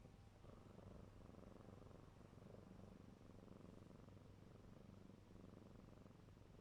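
Young kitten purring softly and steadily, a low continuous rumble.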